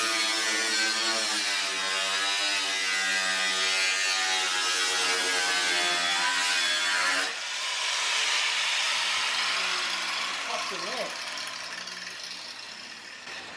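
Angle grinder cutting through the car's sheet-metal body, its motor whine wavering in pitch under load. About seven seconds in the cutting stops abruptly, and the sound then fades away as the grinder runs down.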